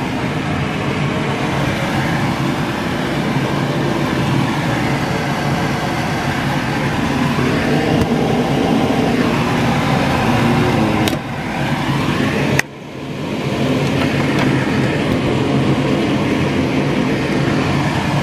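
Kitchen extractor fan over the hob running with a steady rushing noise and a low hum, dipping briefly twice about two-thirds of the way through, the second time cutting off sharply with a click before it comes back.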